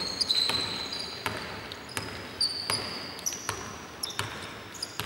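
Basketball dribbled on a hardwood court, a bounce about every 0.7 s, with short high sneaker squeaks on the floor in between.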